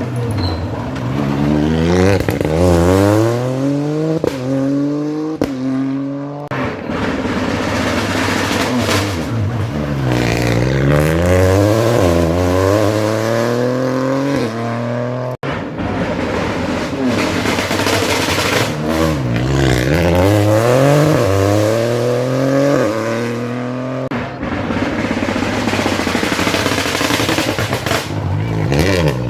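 Rally cars driving flat out through a special stage, one after another. The engine note climbs steeply and drops back again and again as the drivers shift quickly through the gears, and the sound swells and fades with each car.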